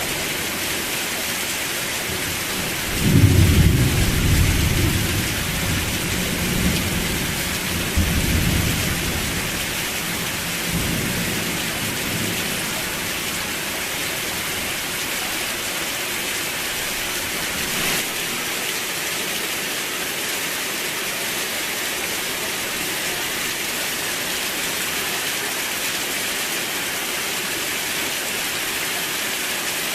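Steady rain falling with an even hiss. About three seconds in, a roll of thunder breaks in low and loud, then rumbles on and fades out by about twelve seconds.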